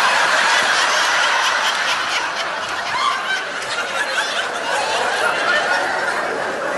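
A large audience laughing without a break, easing off slightly about halfway through.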